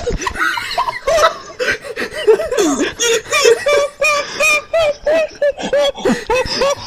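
A person laughing in a long run of short, high-pitched laughs, falling into an even rhythm of about two to three a second.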